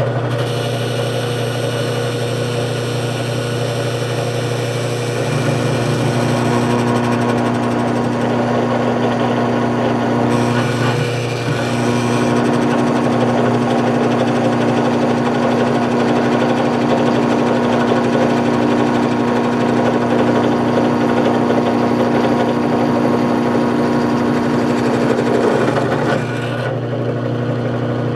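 Drill press motor running with a steady hum while the bit cuts into a welded-up metal plate. The cutting noise grows louder about five seconds in, dips briefly, and eases off near the end.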